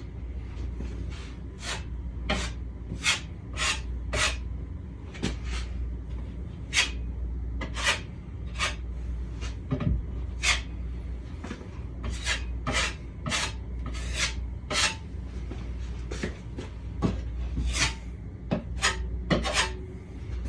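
Drywall knife scraping joint compound over screw holes on a drywall wall: a series of short, irregular scrapes, roughly one a second, over a steady low hum.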